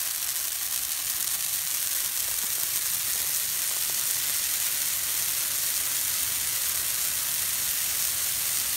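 A dry Christmas tree burning in a metal barrel as its smoking needles flare into tall flames: a steady hiss that grows a little louder during the first two seconds.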